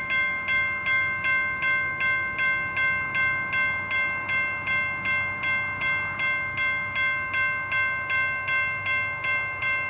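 Safetran railroad crossing bell ringing in a steady rhythm of about two and a half strikes a second, each ring carrying into the next. This is the warning bell of an active grade crossing.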